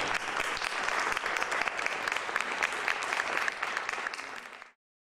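Audience applauding, the dense clapping tapering off and then cutting off abruptly near the end.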